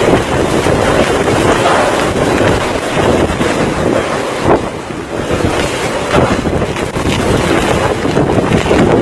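Hurricane wind gusting hard and buffeting the microphone, loud and rising and falling in gusts.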